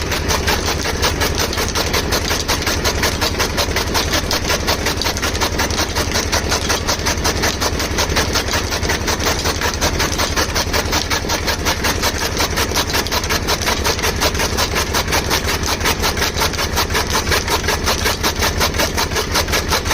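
Chaff cutter machine running steadily and chopping dry fodder, with a fast, even chopping rhythm of several strokes a second over a steady low hum.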